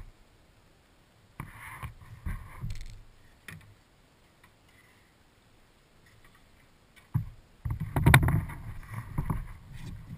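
Sea kayak being paddled, heard through a camera on its bow deck: irregular splashes of paddle strokes and knocks of water against the hull. The sound drops away for a few seconds in the middle and comes back louder and busier.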